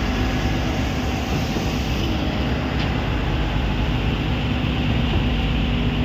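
Steady drone of a concrete boom pump running as it places concrete, with a faint low hum and no breaks.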